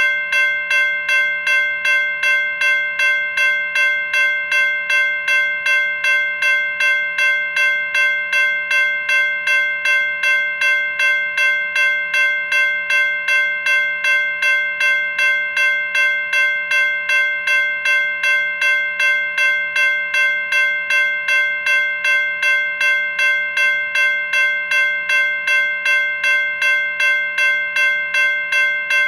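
NEG electronic locomotive bell ringing steadily, set to its loudest volume: an even, repeated clang about twice a second, each strike ringing with several fixed metallic tones.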